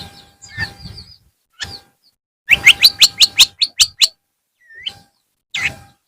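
Long-tailed shrike (cendet) calling in short, harsh chirps. Near the middle comes a fast run of about eight sharp notes, then a few scattered single calls.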